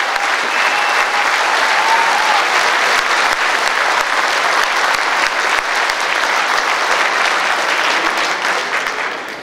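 Large audience applauding: dense, steady clapping that dies away near the end.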